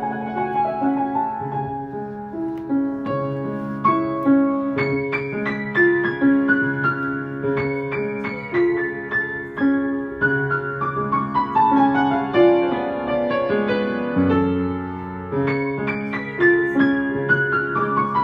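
Background piano music: a melody over sustained lower notes, with runs of notes stepping downward in pitch.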